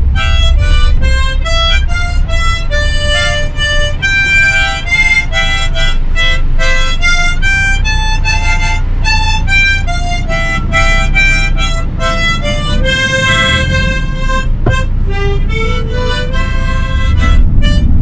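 Harmonica playing a tune as a run of separate notes, inside a moving van over the steady low rumble of its engine and tyres.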